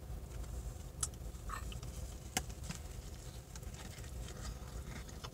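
Faint handling noises: a few soft clicks and crinkles from a paper liner and cardboard box as a gooey cinnamon roll is lifted and bitten into, over a steady low background rumble.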